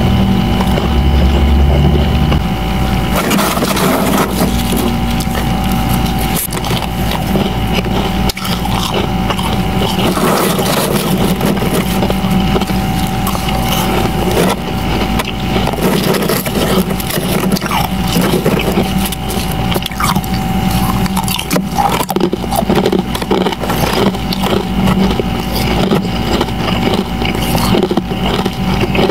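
Close-miked crunching and scraping of powdery refrozen freezer frost as it is dug out and eaten, a dense crackle of small crunches throughout, over a steady faint hum.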